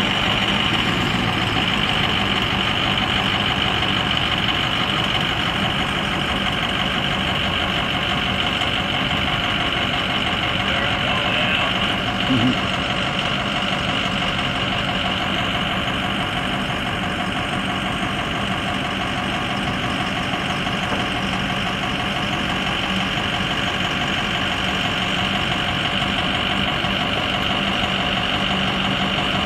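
Ford 6.0L V8 turbo diesel engine idling steadily, with one short knock near the middle.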